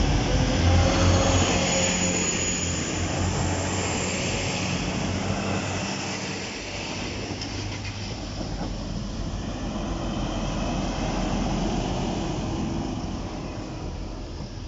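Two Class 185 diesel multiple units passing each other: underfloor diesel engines running and wheels on rail. The sound is loudest at the start, eases off about six seconds in, swells again as the second train goes by, and fades near the end.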